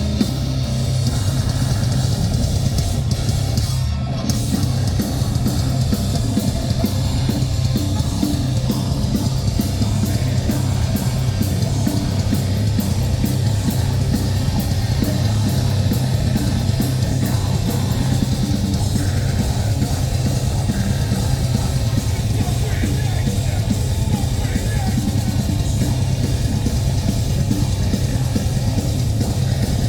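Metalcore band playing live: heavy distorted guitars and bass with pounding drums and fast, driving cymbal hits. There is a brief break in the drums about four seconds in.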